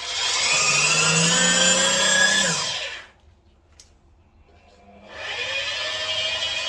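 A handheld electric tool's motor running with a steady whine. It is switched off about two and a half seconds in and winds down, then is switched on again about five seconds in and runs up to speed.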